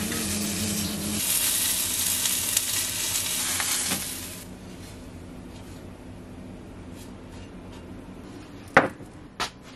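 Scrambled eggs sizzling in a frying pan while a spatula stirs them. The sizzle stops about four seconds in, when the eggs are tipped out onto a plate. It is followed by a quieter stretch and a single sharp knock near the end.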